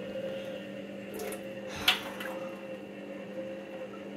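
Washing machine detergent drawer being emptied of dirty water: wet squishing and dripping, with a sharp knock just under two seconds in, over the steady hum of a running appliance.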